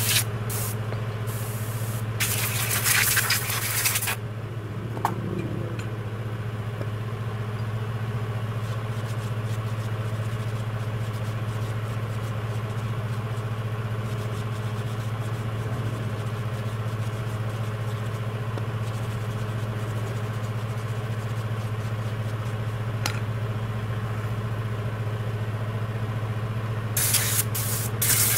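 Workshop air compressor running with a steady hum, with short blasts of compressed air from a blow gun about two seconds in and again near the end, blowing dust off scooter clutch parts.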